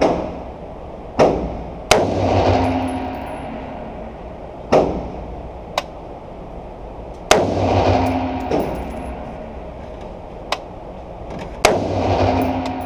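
Springfield Armory Saint Victor AR-15 rifle fired in single shots at an uneven pace, about six shots one to four seconds apart, each crack followed by a long echo in the enclosed range. A few fainter sharp cracks fall between them.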